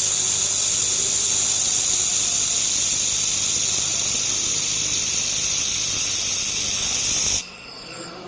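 Steady loud hiss from a 2 kW laser welding machine at work, the gas jet at the welding head, over a low hum. It cuts off suddenly about seven seconds in.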